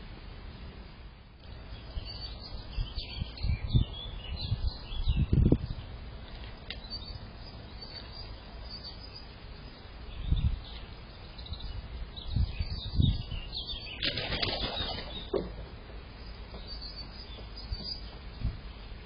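Small garden birds at a water trough chirping, with bursts of wing flapping; the loudest flurry comes about fourteen seconds in.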